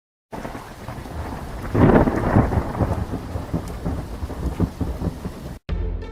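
Thunderstorm sound effect: steady rain with a loud rumble of thunder peaking about two seconds in. It starts suddenly and cuts off abruptly near the end.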